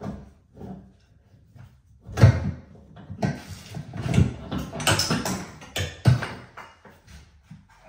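Irregular knocking and clattering of hand tools and fittings during plumbing work on copper pipes, a quick series of sharp hits for about four seconds from two seconds in.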